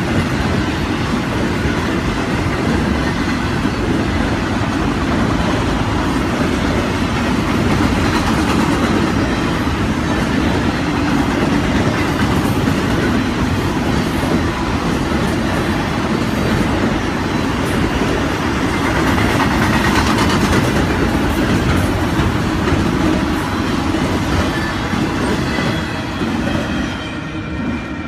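Freight train of autorack cars rolling past close by: steady wheel-on-rail noise with clickety-clack of wheels over the rail joints. It grows quieter over the last couple of seconds as the end of the train passes.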